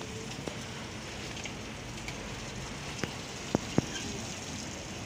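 Fluid draining from the truck's engine, splashing steadily onto the ground, with a few sharp clicks a little past the middle.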